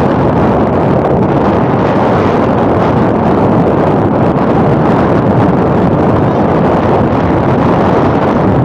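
Steady, loud wind buffeting the microphone, a continuous rumbling rush with no breaks.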